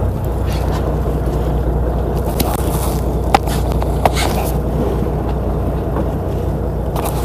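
A fishing boat's engine running with a steady low drone under wind and water noise. There are two short sharp clicks, about three and a half and four seconds in.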